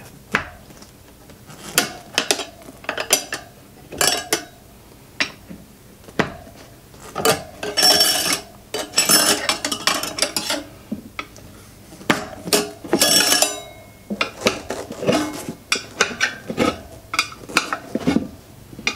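Metal tire irons clinking and scraping against a motorcycle's spoked wheel rim as they are leapfrogged around it, levering the tire bead off the rim. The clicks are sharp and irregular, with a couple of longer scrapes as the bead is pulled over the rim.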